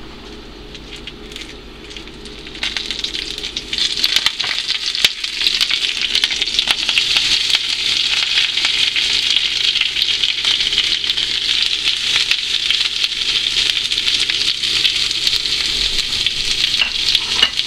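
Hot oil sizzling in a stainless steel frying pan, lightly at first around a few crushed dried red chillies. A few seconds in, sliced bitter gourd is tipped in with a few clicks, and the sizzle becomes loud and steady.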